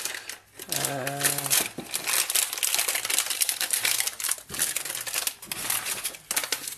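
Clear plastic bag crinkling and rustling in the hands as a cable is handled inside it, in a dense run of irregular crackles.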